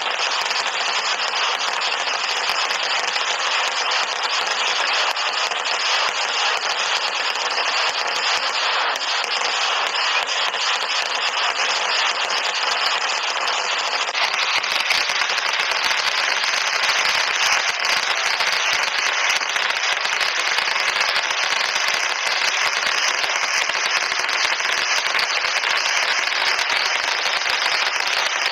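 Festival fireworks display: a dense, rapid string of firecracker blasts running together into a continuous crackle. About halfway through it turns sharper, with more separate cracks.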